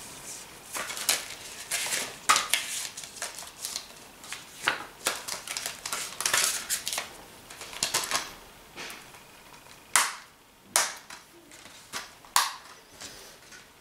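Plastic Blu-ray disc case being handled: irregular clicks, taps and rustles, with two sharper clicks about ten seconds in.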